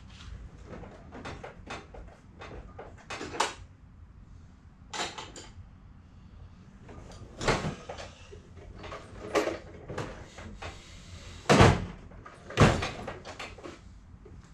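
A string of irregular knocks and clunks from tools and parts being handled during work on a bicycle crank, with two louder bangs about twelve seconds in.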